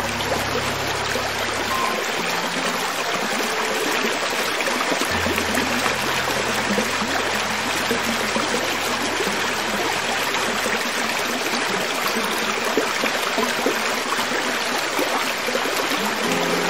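Small rocky hill creek flowing steadily over stones, an even rushing babble of water. A low steady tone sounds underneath near the start and again for several seconds in the middle.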